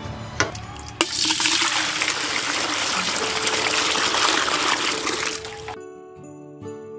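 A loud, steady rushing hiss, water-like, starts suddenly about a second in and cuts off about a second before the end. Background music with jingling bells follows it.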